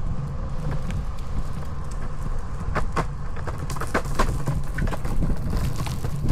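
Longboard wheels rolling on a concrete path: a steady low rumble, with a run of sharp clicks between about three and five seconds in as the wheels cross the joints between the slabs.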